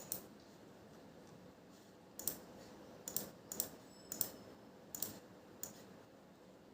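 A series of about seven short, sharp clicks at irregular intervals, some in quick pairs.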